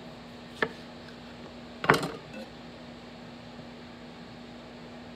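Chef's knife knocking on a wooden cutting board as tomatoes are cut and cleared: one light knock, then a louder cluster of knocks about two seconds in, over a steady low hum.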